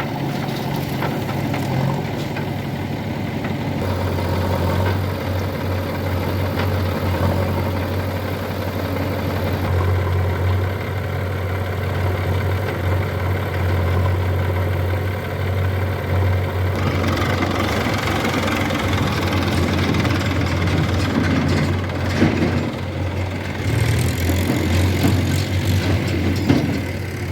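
Diesel engine of heavy earthmoving machinery running steadily at a low idle-like hum, its note and load shifting a few times.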